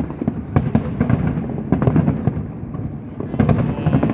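Aerial fireworks display: shells bursting in a dense string of bangs and crackles, several reports a second over a continuous rumble.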